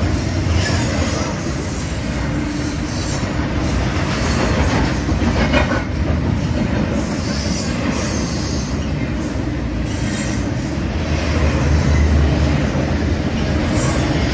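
BNSF double-stack container train passing close by: a steady rumble of wheels on the rails and cars running past, with a few knocks.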